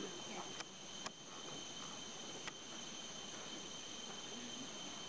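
Rainforest insects droning: a steady, high-pitched chorus held at several fixed pitches, with a few faint clicks.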